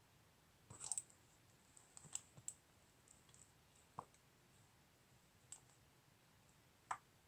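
A few faint, irregular clicks, about six groups spread over several seconds, from a laptop being operated.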